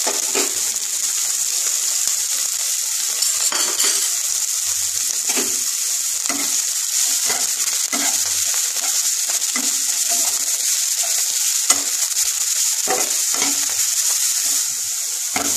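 Chopped onion, carrot, capsicum and coriander leaves sizzling in hot oil in a non-stick kadai, with a steady hiss, while a spatula stirs and scrapes them across the pan in repeated strokes about once a second.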